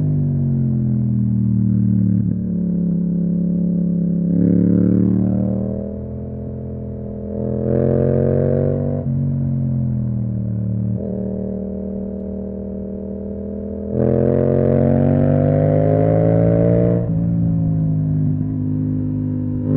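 Yamaha MT-07's 689 cc parallel-twin engine through an Akrapovic exhaust on the move. It rises in pitch under throttle several times, steps down between pulls and runs steadier in between, with the longest pull near the end.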